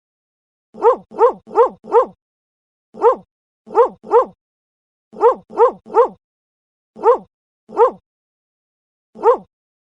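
A dog barking: about thirteen short, identical-sounding barks in clusters of four, three, three, two and one, separated by silent gaps.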